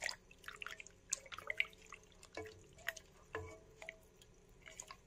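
Silicone spatula stirring a thick milk mixture in a steel pot: irregular wet squelches and light clicks.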